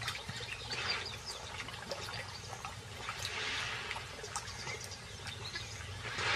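Impala drinking at the water's edge: soft lapping and trickling water with small scattered clicks.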